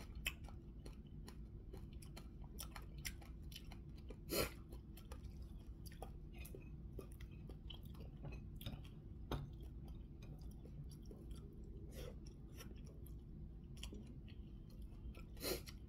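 A person chewing a mouthful of food close to the microphone: a run of small moist clicks, with a louder click about four seconds in and another near the end, over a steady low hum.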